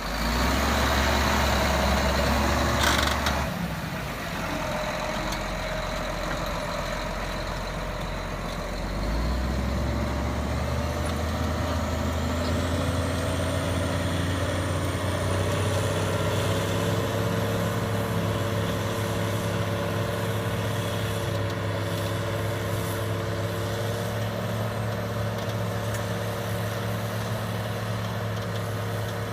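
A heavy machine's engine running steadily with a low hum, which shifts in pitch about four seconds in and again about nine seconds in.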